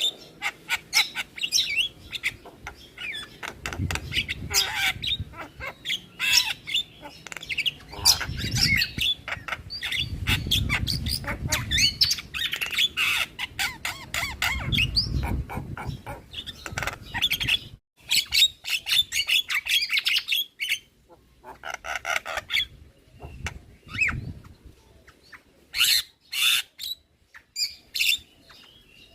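Javan myna (jalak kebo) singing a rapid, varied song of harsh squawks, clicks, chatter and whistled notes, with short pauses.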